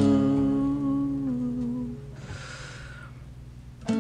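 A person humming a held note that steps down slightly and fades out about two seconds in. A brief soft hiss follows, then acoustic guitar strumming comes back in at the very end.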